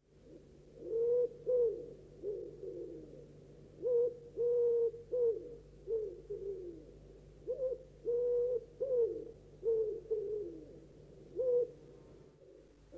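Owl hooting: short hoots in phrases of about three, the phrases repeating roughly every three and a half seconds. Some hoots hold their pitch and others drop away at the end.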